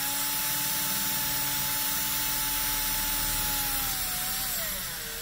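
Cordless drill running steadily as it drills through a small brass flange, with a steady motor whine. About four seconds in, the whine drops lower as the drill slows, then runs on.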